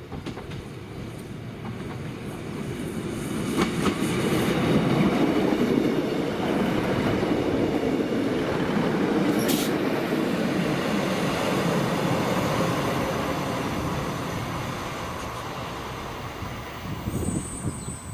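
Northern Class 156 diesel multiple unit passing close by: the rumble of its diesel engines and wheels on the rails builds over about five seconds, stays loud, then fades as the train draws away. A brief high squeal from the wheels comes about nine seconds in.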